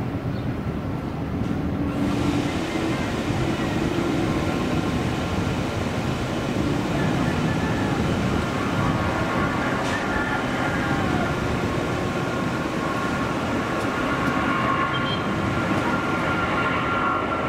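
Boeing 777-300 twin-jet airliner on its takeoff roll, engines at takeoff thrust: a steady loud roar with a deep rumble, and whining engine tones that grow stronger in the second half.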